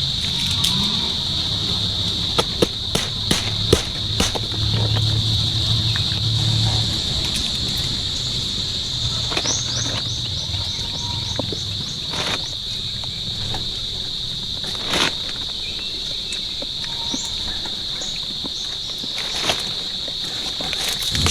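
Steady, high-pitched chorus of insects, unbroken throughout, with scattered sharp clicks and taps over it.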